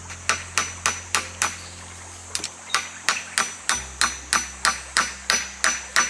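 A rapid series of sharp strikes from a hand tool, about three to four a second, each with a short high ring. There is a brief pause about two seconds in before the strikes resume.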